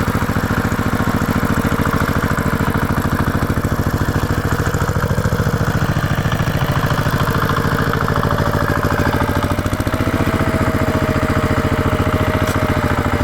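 Tractor engine running steadily at idle, with a rapid, even firing beat. A faint thin whine joins about ten seconds in.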